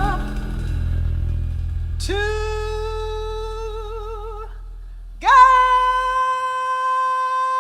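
A female jazz singer holding two long wordless notes, each sliding up into its pitch, the first wavering with vibrato as it ends and the second held steady, over a low band accompaniment that fades out during the second note.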